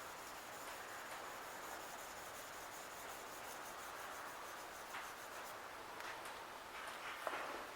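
1500-grit sandpaper rubbed in light strokes over an etched Damascus steel blade: a faint, steady scratching, with a few sharper scrapes near the end. The fine paper is polishing the high spots of the etched pattern.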